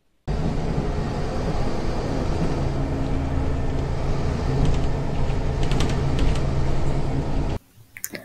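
Engine and road noise heard inside a moving bus: a steady low drone with a low hum. It cuts in just after the start and cuts off suddenly near the end.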